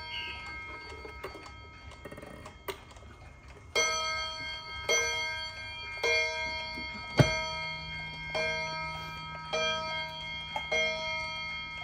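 Aichi Tokei spring-driven wall clock striking on its two nickel-silver gongs: a series of evenly spaced strikes about a second apart, each ringing on, running most steadily from about four seconds in to near the end.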